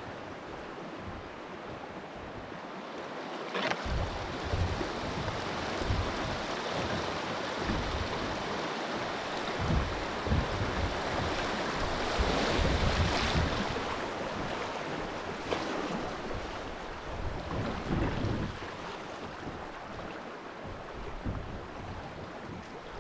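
Rushing water with wind buffeting the microphone. The wind rumble comes in suddenly about four seconds in, gusts through the middle and eases near the end.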